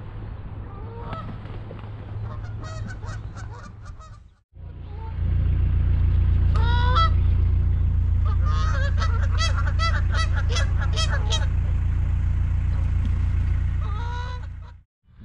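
Canada geese honking, in short runs of repeated calls from a few seconds in to near the end. Under them is a steady low rumble, louder from about five seconds in.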